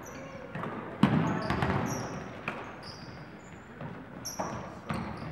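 Basketball game sounds: a ball bouncing on the court with sharp thuds, the loudest about a second in, and repeated short high-pitched sneaker squeaks.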